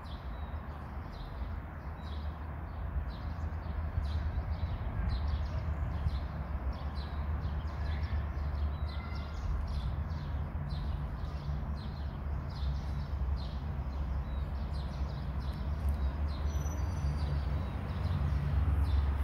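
Outdoor background of a steady low rumble, with short high chirps repeating about twice a second throughout and a few brief bird calls.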